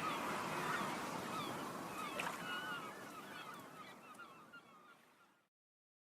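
Birds chirping, many short calls over a faint background hiss, fading out steadily until the sound cuts to silence a little over five seconds in.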